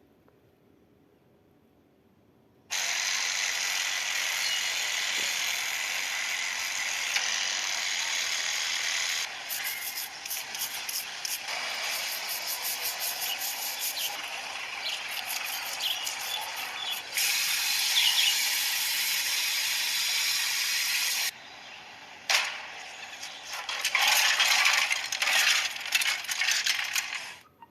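Workshop noise from car repair work: a loud steady hiss that cuts in and out abruptly several times, with runs of rapid rattling clicks in the middle and again near the end. It is nearly silent for the first couple of seconds.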